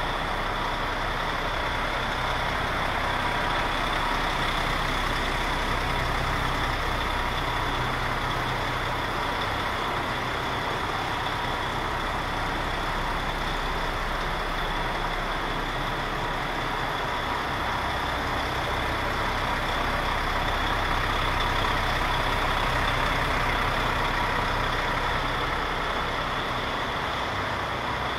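DAF XF105 tractor unit's Paccar MX diesel engine idling steadily, a low even rumble with a steady high whine running alongside.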